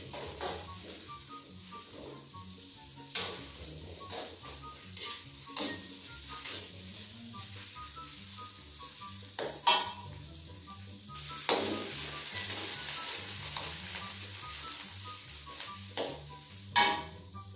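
Pounded spice paste sizzling as it fries in oil in a metal wok. A metal spatula stirs it, with irregular scrapes and knocks against the pan, the loudest a little before the middle and near the end. The sizzling swells louder for a few seconds past the middle.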